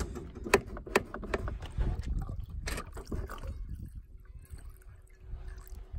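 Scattered clicks and knocks over a low rumble, which die away about three and a half seconds in, leaving a faint steady hum.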